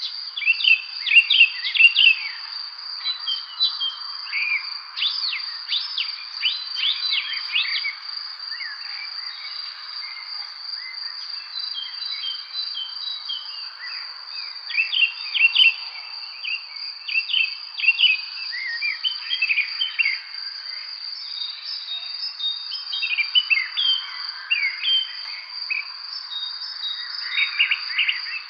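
Songbirds chirping and singing in short bursts of quick notes, over a continuous high-pitched insect trill, typical of crickets, and a soft background hiss.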